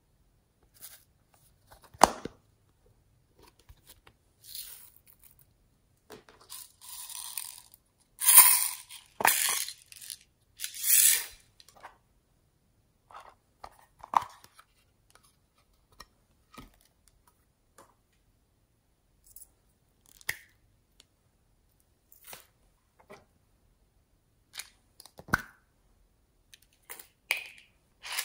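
A small plastic case of putty being handled and squeezed by hand: a sharp plastic click about two seconds in, a run of louder sticky crackling and tearing sounds about a third of the way through, then scattered light taps and clicks.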